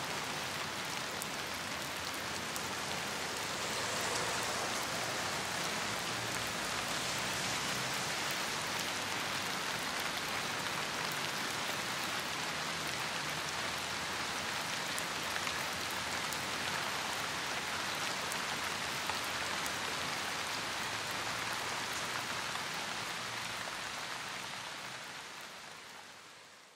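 A steady, even hiss with faint scattered ticks, fading out over the last couple of seconds.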